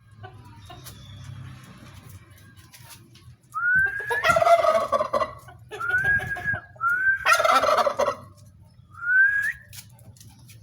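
Turkeys calling: short rising whistled calls four times, and a loud gobble about four seconds in and again about seven seconds in.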